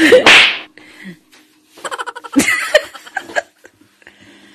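A short loud rush of noise at the start, then someone giggling in short breathy bursts about two seconds in.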